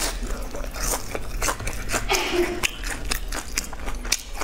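Close-up biting and chewing of a crispy fried ball, a run of quick, irregular crackly crunches.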